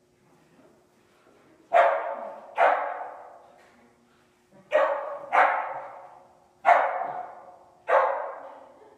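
A dog barking six times, mostly in pairs, each bark echoing in a large indoor arena.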